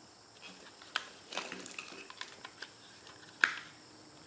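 Plastic wiring-harness connector being plugged into a GM E38 engine control module: light plastic clicks and rattles, then one sharp snap about three and a half seconds in.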